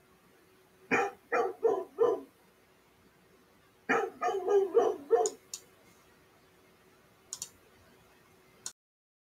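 Recorded dog barking played back: a quick run of four barks about a second in, then a run of five or six barks about four seconds in, over a faint steady hum. The playback cuts off abruptly near the end.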